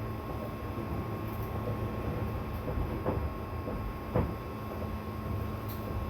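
Interior running sound of a 205 series 1000 electric commuter train: a steady rumble of wheels on rail, with two sharp knocks from the wheels about three and four seconds in.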